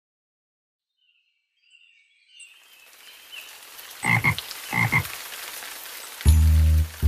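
Frog croaking twice over a soft patter of rain, the sound effect for a cartoon rain scene. A children's song's music comes in near the end.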